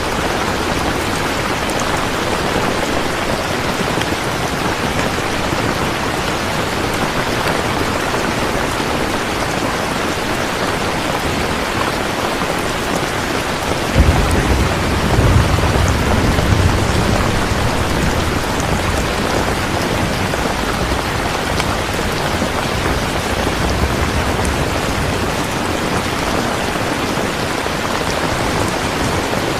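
Steady rain falling, with a sudden low rumble of thunder about halfway through that rolls on for several seconds.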